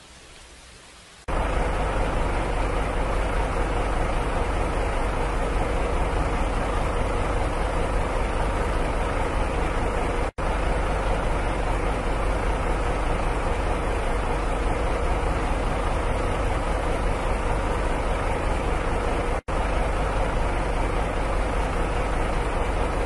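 Big-tyred mud-bogging buggy's engine running loud and steady as the buggy churns through a mud pit. It starts abruptly about a second in, after a faint hiss, and drops out briefly twice.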